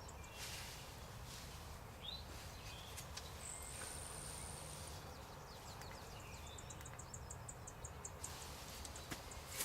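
Faint woodland ambience with small bird chirps: a short rising chirp, a high steady whistle lasting over a second, and a quick run of high ticks near the end.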